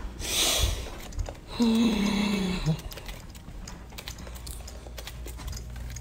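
Scattered light clicks and knocks from handling an upright vacuum and its cord while the motor is off, with a short hiss near the start and a brief low tone about two seconds in.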